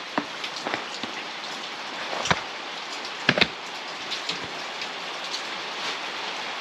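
Steady patter of many small ticks over a hiss, with a few louder knocks about two and three seconds in.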